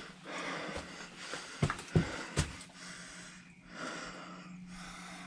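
A man breathing heavily close to the microphone as he walks, the breaths rising and falling, with three sharp steps or knocks on the path around the middle.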